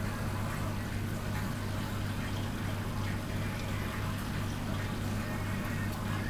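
Aquarium water pump running with a steady low hum, along with the sound of moving, splashing water in the tank.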